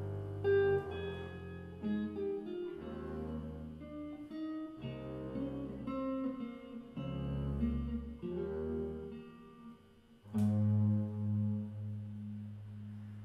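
Instrumental ending of a song on electric guitar and plucked upright double bass, playing a run of notes without voice. About ten seconds in, both strike a final chord that rings and slowly fades.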